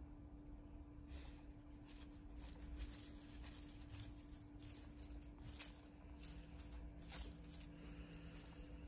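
Quiet room with a steady low hum and faint scattered rustles and light clicks, one a little louder about seven seconds in.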